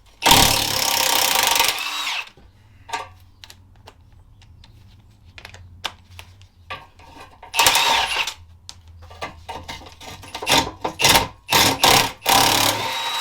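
Power tool, such as an impact driver, run in three short bursts on the exhaust clamp nuts, with clicks and knocks of the work in between.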